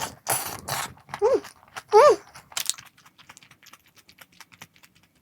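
Someone chewing crispy fried food: loud crunching at first, then many small crackling crunches. Two short pleased 'mm' hums come about one and two seconds in.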